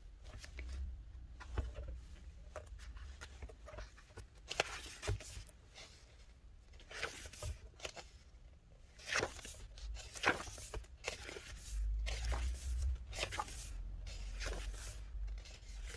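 Photos, cards and their paper and plastic packaging being handled: irregular rustles, slides and light taps, with low handling bumps.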